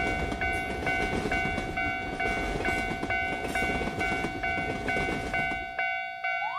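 Japanese railroad crossing warning bell ringing its repeated "kan-kan" about twice a second, over the running noise of a passing train. The train noise falls away near the end, and a short rising tone starts just at the end.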